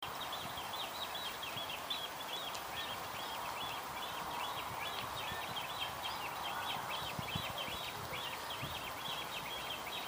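A bird calling steadily, a long series of short high chirps repeated about three to four times a second, over a faint background hiss.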